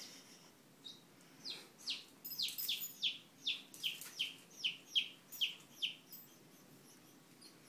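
Newborn chick peeping loudly and rapidly, about a dozen high peeps at two to three a second, each sliding down in pitch: the repeated distress peeping of a chick being nosed by a dog. The peeps fade to faint ones about six seconds in.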